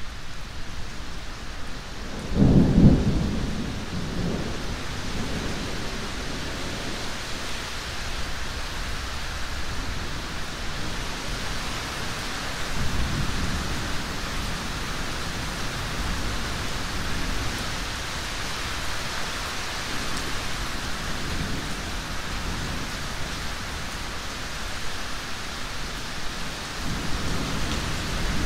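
Steady rain with thunder: a loud low rumble about two seconds in that dies away over a couple of seconds, then fainter rumbles around halfway and near the end.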